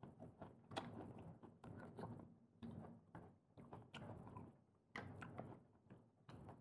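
Close-up chewing and eating sounds of a prawn and clam meal: a run of short, quiet bursts about one or two a second.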